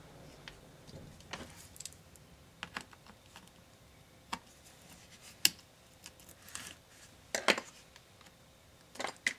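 Scattered small clicks and taps of hands and a small screwdriver working on the parts of an opened MSI GS66 Stealth laptop's underside. The sharpest click comes about halfway through, with a quick cluster of clicks a couple of seconds later and more near the end.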